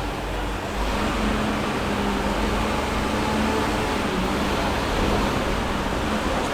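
Steady mechanical running noise with a low hum that sets in about a second in.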